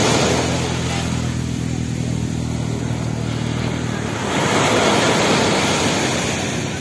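Small sea waves breaking and washing up a sand beach, with a second surge about four seconds in. Under the surf, a steady low engine hum runs for the first four seconds or so.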